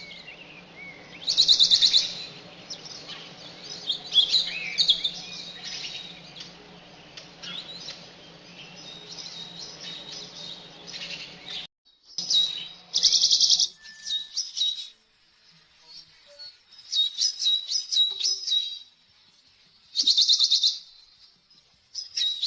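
Songbirds chirping and calling, with several loud buzzy trills in between. A steady low hum runs under the first half, then cuts off suddenly about twelve seconds in, leaving the calls against a quieter background.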